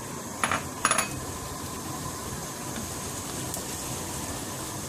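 Chopped onions frying in oil in a wok with a steady sizzling hiss. Two quick clusters of sharp clinks about half a second and one second in, from the glass bowl and utensils knocking against the pan.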